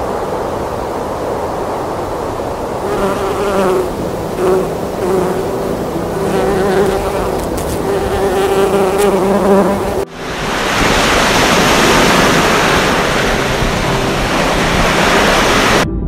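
Bees buzzing, several wavering hums coming and going at different pitches. About ten seconds in it cuts to a loud, steady rushing noise.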